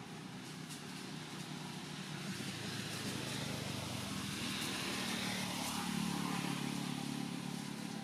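A motor vehicle's engine passing by: a low hum that grows steadily louder, peaks about six seconds in, and then begins to fade.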